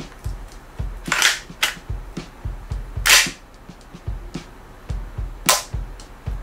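Cyber Gun gas-blowback SCAR-H airsoft rifle fired three single shots about two seconds apart, each a sharp blast of gas with the bolt cycling.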